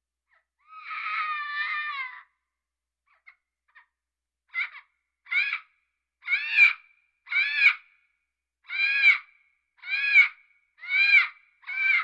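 Parrot calling: one long call with a wavering pitch about a second in, then a run of eight short squawks, about one a second.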